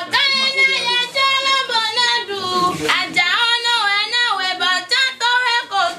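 A woman singing in a high voice, holding notes and sliding between pitches, with short breaks between phrases.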